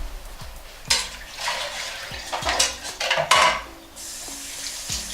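Dishes and utensils clattering in a kitchen sink during washing-up, followed by a tap running steadily near the end.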